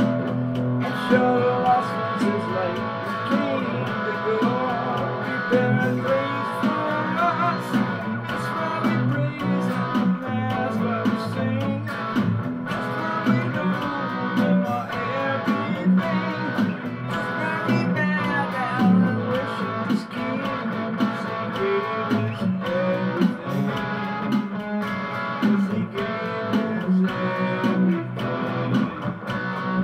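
Electric guitar playing an instrumental passage: a single-note lead with bent, wavering notes over low sustained notes.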